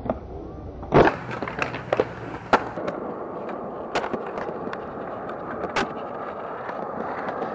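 Skateboard on concrete: a loud board slap about a second in, a few sharp clacks of the deck and wheels, then the wheels rolling steadily over concrete with an occasional click.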